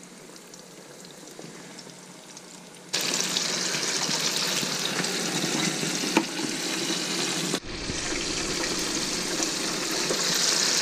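Breaded fish fillets going into a countertop electric deep fryer. All is fairly quiet at first; then, about three seconds in, the hot oil starts sizzling loudly and steadily as the fish go in, with one brief drop late on.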